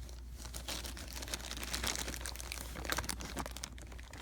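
Packaging wrap being handled and unwrapped by hand: a dense, irregular crinkling and crackling.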